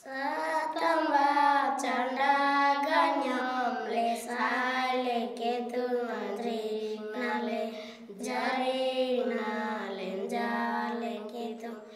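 Children singing a prayer, a slow melody of held notes ("Heed our prayers, O Lord… we beseech you"), with a short break about eight seconds in.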